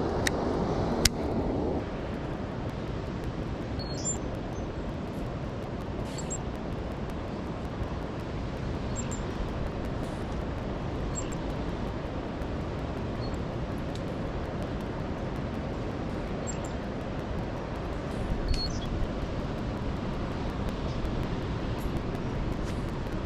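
Steady rushing of a waterfall running high with flood water, with a few faint, brief high chirps scattered through it.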